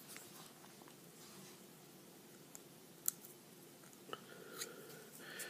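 Faint handling sounds of an aluminium stylus tube being worked through a piece of conductive foam: soft scattered clicks, one sharper click about three seconds in, and a soft scraping hiss near the end.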